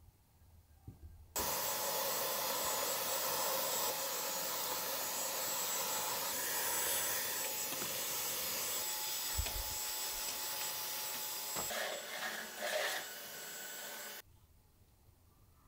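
Dyson Digital Slim cordless stick vacuum running with its crevice tool in a window track: a steady rush of air under a high, steady whine. It starts about a second and a half in, goes uneven for a moment near the end, and cuts off abruptly.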